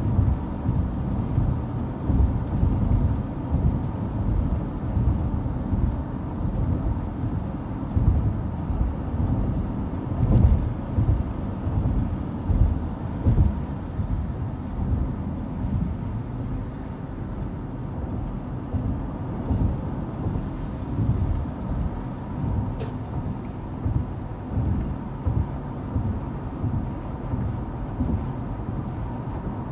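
Car driving at highway speed, heard from inside the cabin: a steady low rumble of tyre and engine noise, with a couple of faint clicks.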